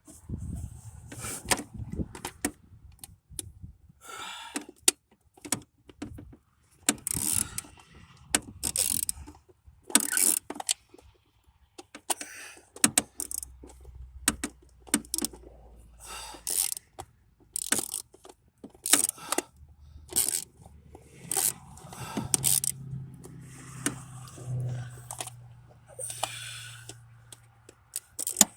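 Irregular metallic clicks, clinks and scrapes of a hand tool working against metal as a stubborn distributor cap hold-down on a 1993 Chevy truck engine is worked loose.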